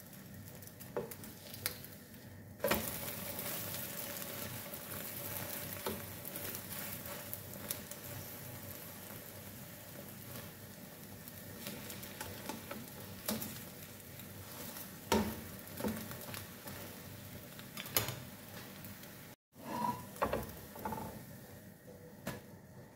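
An egg omelette sizzling in a non-stick frying pan, the frying hiss getting louder about three seconds in. A spatula knocks and scrapes against the pan now and then as the omelette is lifted and turned.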